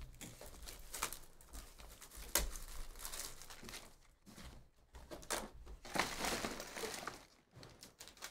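A cardboard 2023 Bowman's Best baseball hobby box being handled and opened by hand: irregular rustling and scraping of cardboard and paper, with a couple of sharp taps.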